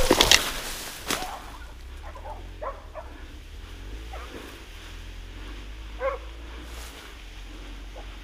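Hunting dogs barking and yelping faintly, a few short calls spread out, with a brief loud noise right at the start.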